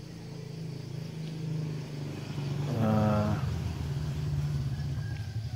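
A motor vehicle engine running steadily with a low hum, slowly getting louder, with a short burst of a man's voice about three seconds in.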